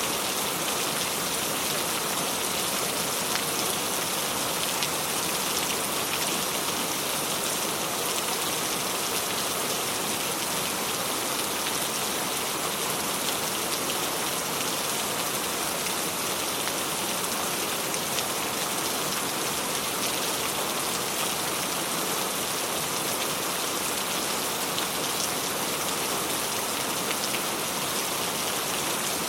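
Steady rain falling: an even hiss of drops on a surface, with scattered small drop ticks and no breaks or changes.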